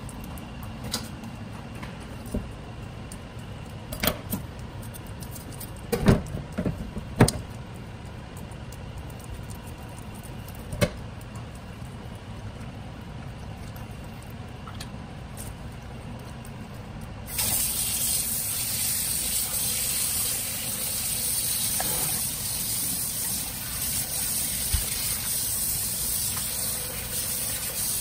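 A few sharp knocks of a knife and fish on a cutting board in a stainless steel sink. Then, about two-thirds of the way in, a tap is turned on and water runs steadily into the sink and over the gutted fish being rinsed.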